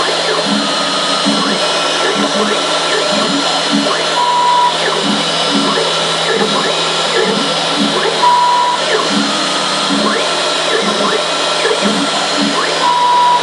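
CNC router milling a 3D model out of a foam block: the spindle runs steadily with a high whine and hiss, while the axis motors drive the cutter in short rhythmic pulses that step up and down in pitch. A brief higher tone sounds about every four seconds.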